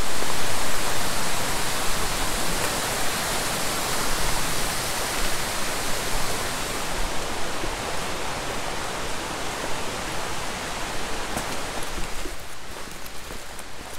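A steady, loud rushing hiss, even across high and low pitches, that eases off about twelve seconds in.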